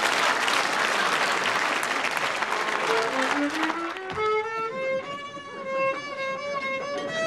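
Audience applause and laughter dies away over the first three seconds; then a solo violin slides upward in pitch and plays a slow melody of held notes.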